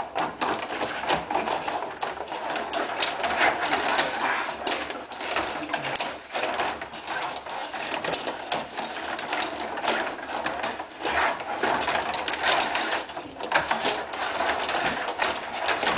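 Rod-operated table hockey game in play: a continuous rapid clatter of the control rods being spun and pushed, the plastic players rattling in their slots and the puck knocking against sticks and boards.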